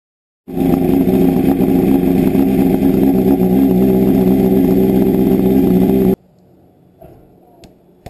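Honda CBR929RR's inline-four engine running steadily, being warmed briefly so the oil flows before it is drained. It starts about half a second in and cuts off abruptly about six seconds in.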